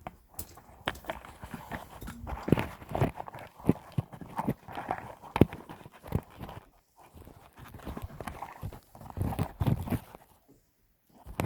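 Irregular knocking and clattering from slate fence sheets and reinforcing bar being handled and struck during the fence repair, in two busy stretches with a short pause between.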